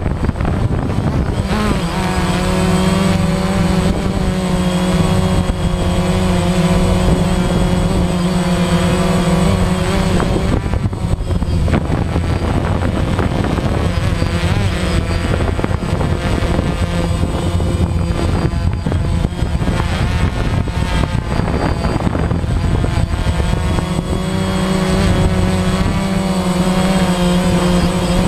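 DJI Phantom quadcopter's motors and propellers buzzing close to the camera mounted on it: a loud, continuous whine whose pitch holds steady for a while, wavers up and down through the middle as the drone manoeuvres, and settles again near the end.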